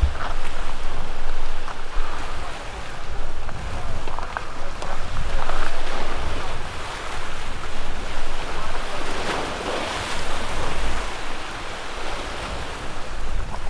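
Ocean waves washing in, with wind gusting on the microphone; one wash swells loudest about nine to ten seconds in.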